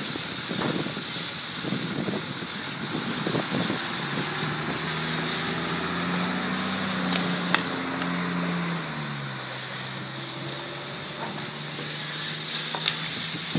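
A fire engine's motor comes in over a steady hiss from about four seconds in and drops in pitch as it passes about nine seconds in. Two sharp pops, one about halfway through and one near the end.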